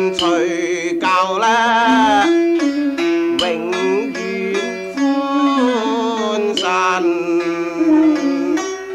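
Cantonese naamyam accompaniment on Chinese string instruments, playing a melodic instrumental passage between sung lines. It comes from an old open-reel radio tape.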